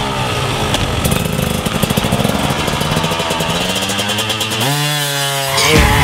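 Enduro motorcycle engines revving: the engine pitch drops, then climbs steadily as a bike accelerates, and is held high briefly near the end.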